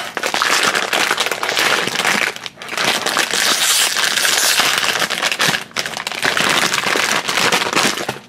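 Foil blind bag being torn open and crinkled by hand, a loud, dense crackling rustle with two short breaks.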